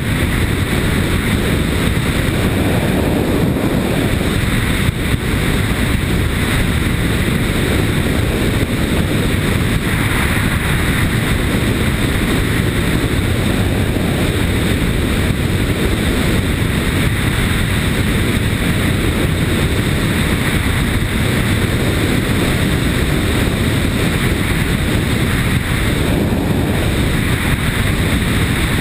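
Loud, steady rush of wind buffeting a helmet-mounted action camera's microphone while riding a Yamaha Ténéré motorcycle at a steady speed, with the motorcycle's engine and tyre noise underneath.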